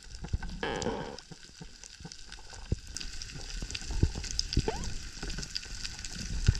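Underwater reef crackle of snapping shrimp, a dense fizz of tiny clicks heard through an underwater camera. About half a second in there is a brief rush of noise, and a couple of short rising squeaks come later.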